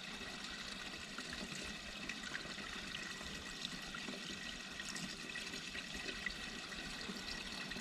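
Fuel pouring steadily from a vented jerry can into a mini excavator's fuel tank, a continuous trickling flow with no glugging because the can's rear vent lets air in.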